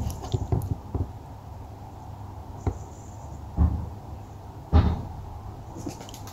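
Light knocks and clicks, then two dull thumps about a second apart near the middle: handling of the PCP air rifle between shots, with no shot fired.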